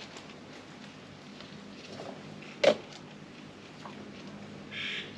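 Quiet sounds of planting by hand: a single sharp knock about halfway through, then a short rustle near the end. A quick falling chirp, like a bird's, comes at the very end.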